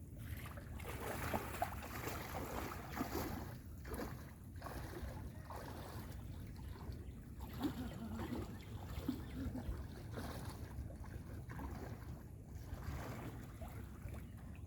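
River water sloshing and splashing around a striped bass held in the current to revive it before release, with wind rumbling on the microphone.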